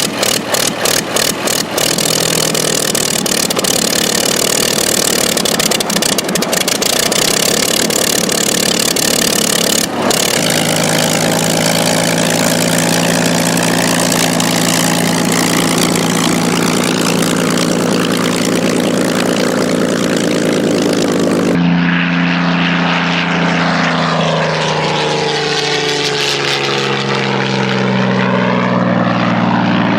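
Old piston engines cold-starting and running, in three clips one after another. The first fires in separate uneven beats for a couple of seconds as it catches, then settles into steady running. The second runs steadily, and the third, duller, runs with its pitch swinging up and down.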